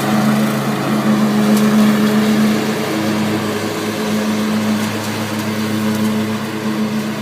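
Troy-Bilt riding lawn mower engine running steadily at an even pitch while mowing, a little quieter from about three seconds in.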